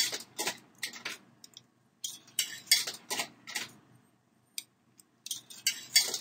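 Coins being fed into a snack vending machine's coin slot and clinking down through the coin mechanism, in three bursts of metallic clinks with short pauses between.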